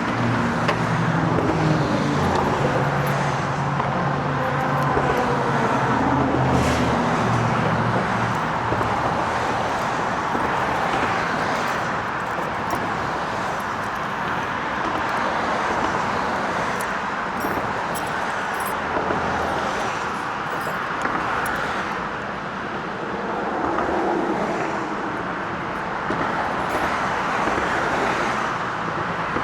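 Steady road traffic noise, with a vehicle's engine running close by for about the first eight seconds before fading into the general traffic.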